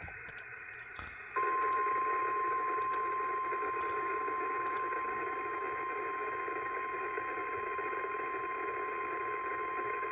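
NOAA Weather Radio warning alarm, the single steady 1050 Hz tone, received over a radio with a steady static hiss; the tone cuts in about a second and a half in and holds. It is the alarm that announces a warning broadcast, here a severe thunderstorm warning.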